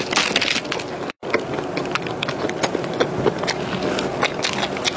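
Close-miked chewing of a soft cream-filled cocoa cream puff: wet mouth and lip-smacking sounds with many small quick clicks. The sound drops out for an instant about a second in.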